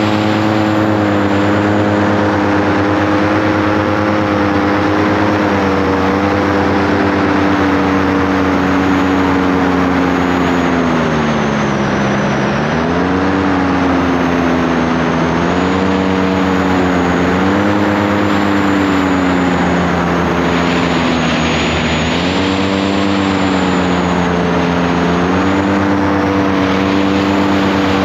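Small aircraft's piston engine and propeller running steadily, its pitch sagging and rising as the throttle is worked. The deepest dip comes about twelve seconds in, with smaller rises and falls after it.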